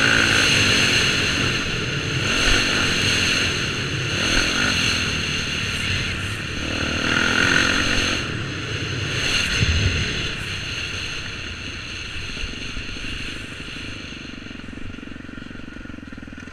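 Dirt bike engine revving up and down as it is ridden around a motocross track, heard close up from the bike itself. The engine is quieter in the last few seconds as the throttle eases off.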